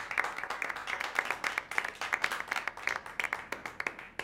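A small group applauding: many overlapping, irregular hand claps from several people, stopping near the end.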